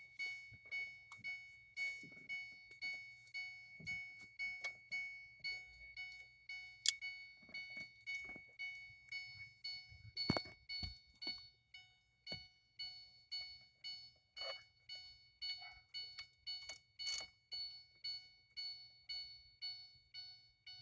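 Ford Ka dashboard warning chime beeping over and over at a steady rate, about one and a half to two beeps a second, as the ignition is switched on. A couple of sharp knocks sound about a third and halfway through.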